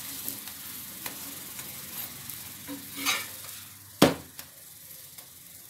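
A corn-flour roti sizzles in a little oil or ghee on a hot iron tawa while a steel spatula presses it down. One sharp knock comes about four seconds in.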